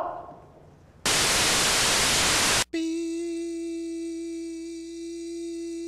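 Loud television static hiss for about a second and a half, cut off abruptly, then a steady test-pattern tone with overtones, held unchanging.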